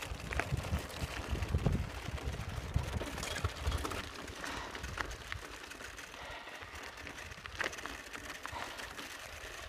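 Bicycle rolling over a gravel dirt track: tyres crunching on loose stones and the bike rattling in scattered clicks, with wind buffeting the microphone as a low rumble that eases after the first few seconds.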